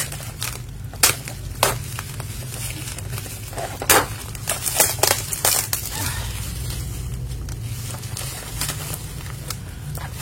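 Packaging of a keycap set being crinkled and torn open by hand without scissors, with irregular crackles and sharp clicks over a steady low hum.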